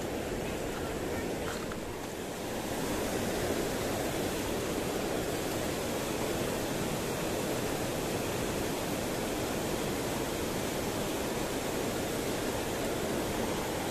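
Water pouring over a low concrete weir and rushing down the river below it, a steady, even rush of falling water; it gets a little louder about two seconds in.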